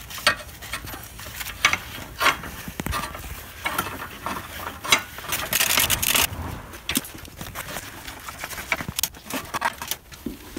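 Hand ratchet wrench clicking as the crash-bar bolts on a motorcycle frame are run in, with small metal clinks of the socket and tools. A longer, quicker run of ratchet clicks comes a little past the middle.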